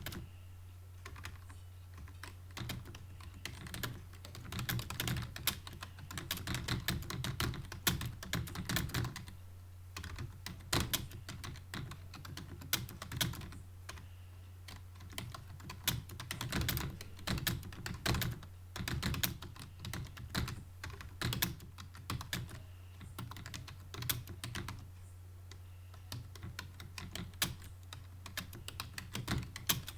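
Computer keyboard being typed on fast during a Hindi typing-speed test, key clicks in quick runs broken by short pauses, over a steady low hum.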